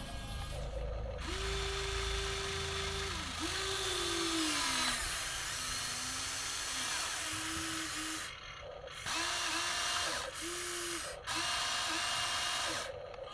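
Huina 1953 radio-controlled excavator's small electric motors and gearboxes whining as it works. The whine comes in separate runs that start and stop, with one long run, one that drops in pitch, and several short ones toward the end.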